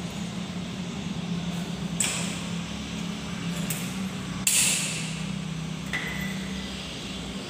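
Sharp metal knocks while a steel window grille is being fitted, over a steady low machine hum: one knock about two seconds in, a louder clatter about halfway, and a short ringing ping near the end.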